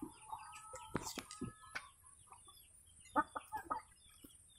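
Chickens clucking softly in short, scattered calls, with a quick run of clucks about three seconds in.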